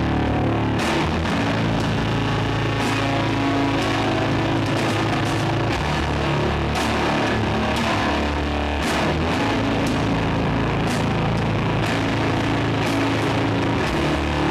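Doom metal band playing live: slow, heavily distorted low electric guitar chords held over drums, with a cymbal crash every second or two.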